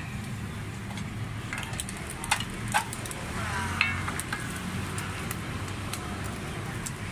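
Steady low hum of street traffic, with several sharp clicks and taps, the loudest about two and a half and four seconds in.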